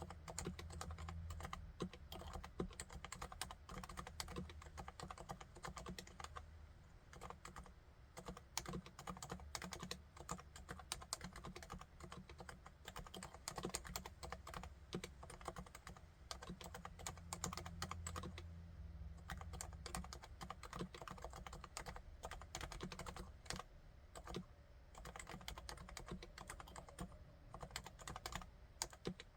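Continuous steady typing on a Topre Realforce RC1 keyboard with silent 45 g Topre electrostatic capacitive switches: a dense run of soft, dampened keystrokes over a faint low hum.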